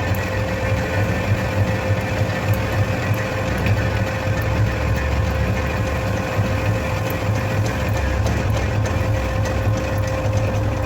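Metal lathe running steadily, its motor and gearbox giving a constant hum with a steady mid-pitched tone over a low drone.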